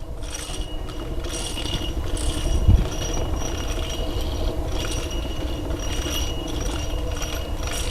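A mechanism running steadily with a low rumble, with repeated high scraping streaks and a single knock a little under three seconds in.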